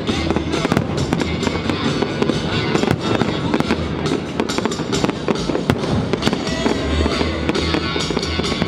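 Aerial fireworks display: a dense run of bangs and crackling bursts with low booms, over loud music.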